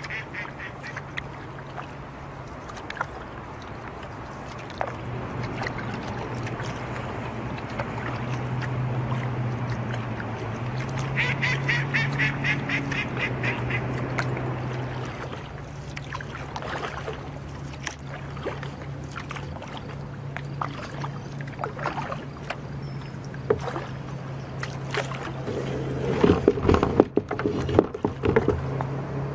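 Ducks and geese calling on the water, with a run of rapid pulsed calls about halfway through, over a steady low hum. Near the end a kayak hull knocks and scrapes against rounded river stones as it runs ashore.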